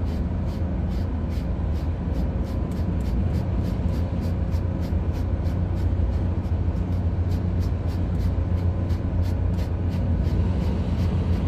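Steady low hum of a ship's running machinery, with a fast regular ticking on top, about three or four ticks a second.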